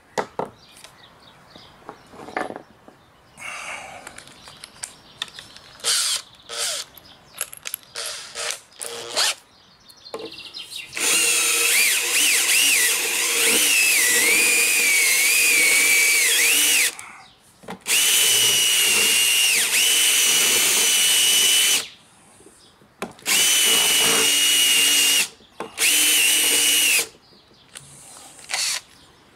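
Cordless drill with a countersink bit running under load in four bursts, cutting countersinks for screw heads in a board: the first run lasts about six seconds with the motor speed wavering, the next ones are steadier and shorter. Before the drilling, a series of short clicks and knocks from handling the drill and board.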